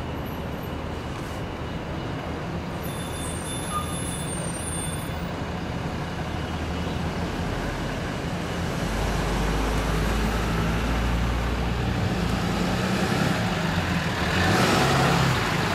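Engines of a pink tour jeep and a shuttle bus running as they creep past at close range, with a strong low rumble from about 8 to 12 seconds in. Near the end there is a louder rush of hissing noise as the jeep pulls up close on the wet pavement.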